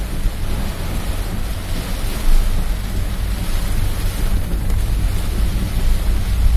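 Heavy downpour falling hard on a car's roof and windshield, heard from inside the cabin as a steady dense hiss over a constant low rumble.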